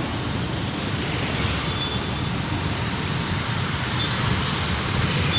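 Steady low rumble of road traffic, with no single event standing out.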